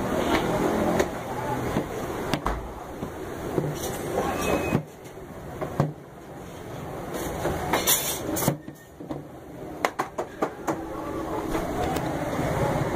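Busy street ambience of voices and traffic noise, with scattered sharp knocks and clatter from the work at the stall.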